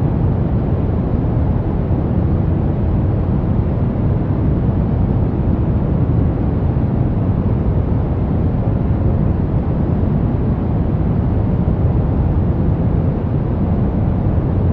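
Soft brown noise: a steady, deep rushing hiss, strongest in the low end and fading toward the highs, unchanging throughout.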